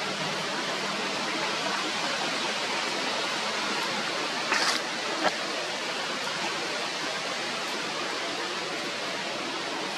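A steady rushing hiss, with a short louder burst of noise about halfway through and a single sharp click just after it.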